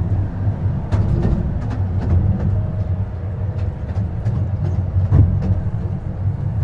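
Miniature ride-on park train running along its track: a steady low rumble with scattered clicks and knocks from the moving carriages.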